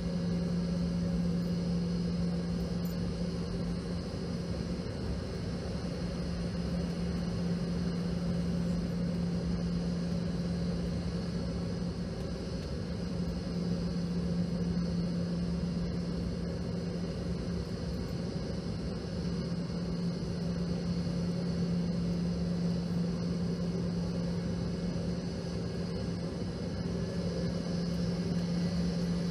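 Steady cabin drone inside a Boeing 717 taxiing with its engines at idle: one low hum that holds throughout, over an even rush of air.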